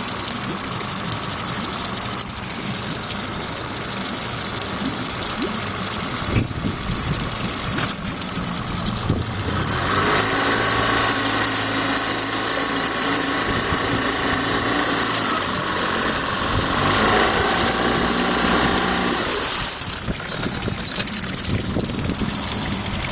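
Boat engine running steadily; about ten seconds in it runs harder with a steady multi-toned hum, then drops back to a lower run after about nine seconds.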